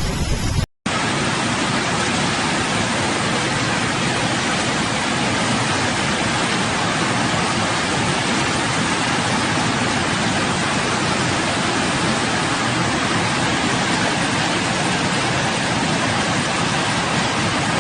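Heavy rain pouring down as a steady, even hiss, broken only by a brief dropout near the start. Before the dropout, gusty wind buffets the microphone with a low rumble.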